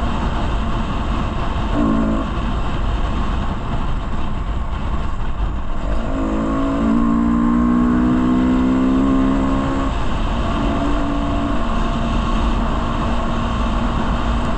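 Yamaha sport motorcycle's engine pulling under throttle at speed, with steady wind rush on the microphone; the engine note rises gently for a few seconds midway.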